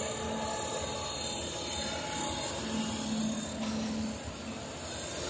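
A motor engine running steadily, a low drone under a wash of rushing noise. The drone grows stronger for about a second just past the middle.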